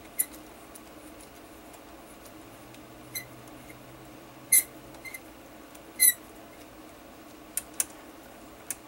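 Sharp metal clinks of a T-handle socket wrench against the valve body bolts and aluminium valve body of a Chrysler 48RE transmission as the bolts are run in by hand. There are about eight irregularly spaced clinks, the loudest just after the start and twice in the middle.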